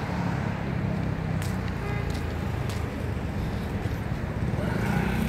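City street traffic: a steady low rumble of vehicles on the road, with a couple of faint clicks.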